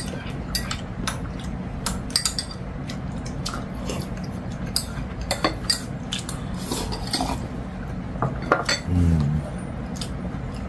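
Metal spoon and chopsticks clicking and clinking against ceramic bowls during a meal: many small, irregular clinks. About nine seconds in there is a brief low hum of a voice.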